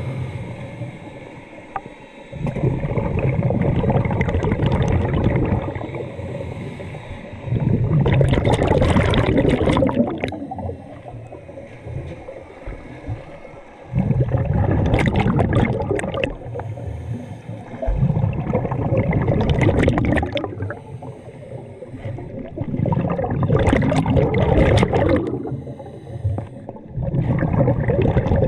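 Scuba diver breathing underwater through a regulator: exhaled bubbles gurgle out in loud surges about every four to six seconds, with quieter stretches between breaths.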